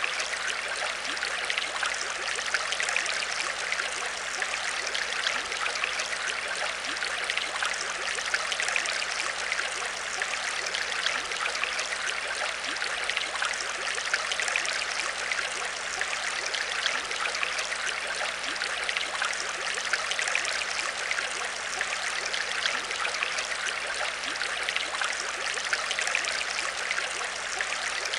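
Aquarium water trickling and splashing steadily, with a dense patter of fine droplets and a faint steady hum underneath.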